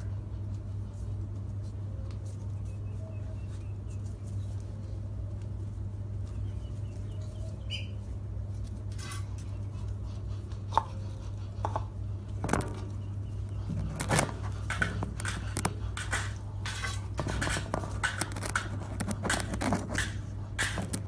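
A kitten playing with a small ball on a tiled floor: scattered taps, knocks and scrapes that start about halfway through and come thick and fast near the end, over a steady low hum.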